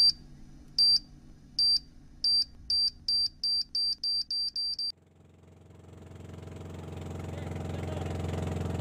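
A short high electronic beep repeats about a dozen times, speeding up, and stops about five seconds in. Then a boat's engine fades in as a steady low hum and grows louder.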